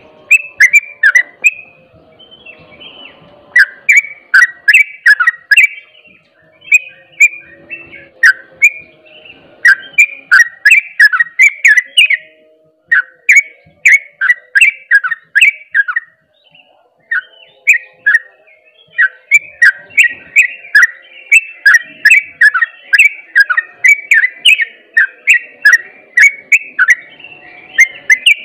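Yellow-vented bulbul singing in its rapid, continuous "ropel" style: long runs of short, clear, downward-slurred whistled notes, several a second, broken by a few brief pauses.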